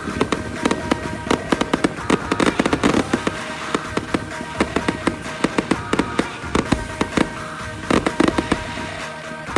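Fireworks display going off: a rapid, uneven run of sharp bangs and crackles, several a second, with music playing underneath.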